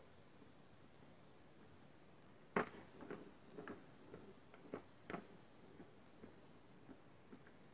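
Faint knocks and clicks of a plastic cat track toy as a kitten bats at its ball: one sharper knock about two and a half seconds in, then a scatter of lighter taps for a few seconds.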